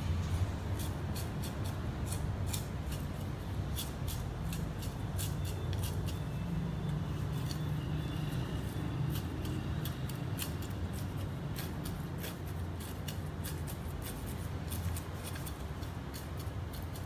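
A bamboo stick poking and working loose soil in a terracotta pot makes a run of small, irregular clicks and scratches over a steady low hum.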